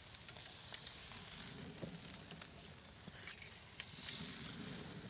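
Steaks sizzling on a hot grill grate over burning spruce branches: a steady soft hiss with scattered small crackles.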